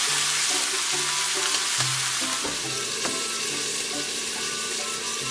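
Chicken wings sizzling hard in a hot frying pan as cooking sake is added. About two and a half seconds in there are a few clinks as a glass lid goes on, and the sizzle turns quieter and muffled under it.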